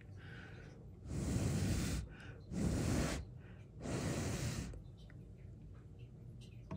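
Three breaths blown out close to the microphone, each under a second long.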